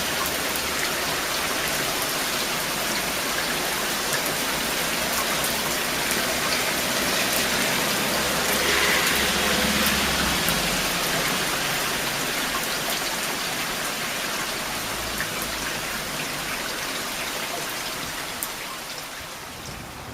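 Steady rain falling, an even hiss with scattered sharp drop ticks. It swells a little midway and eases off toward the end.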